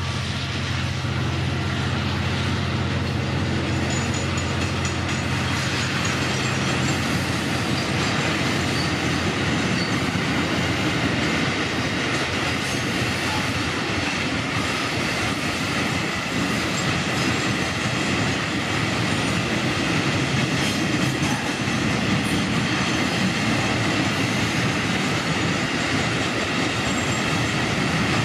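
Freight train of container flat wagons rolling past, a steady rumble of steel wheels on rail with scattered clicks as the wheels cross rail joints.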